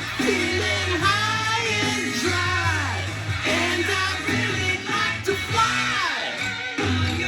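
Rock song playing, a singer's repeated sliding phrases over guitar and a steady bass line.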